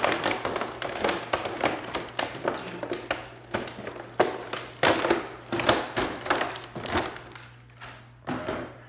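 Stiff clear plastic blister-pack trays crackling and clicking as they are handled and pulled apart, a quick irregular run of sharp snaps that thins out near the end.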